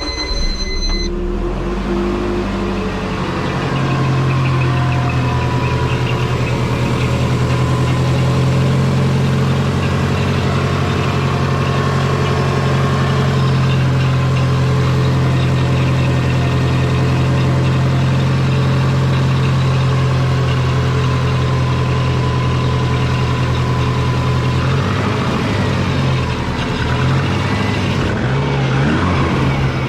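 Turbocharged Subaru flat-four engine starting about a second in, then idling steadily, with exhaust leaks still present in its custom twin-turbo exhaust. Near the end the idle note becomes uneven and wavers.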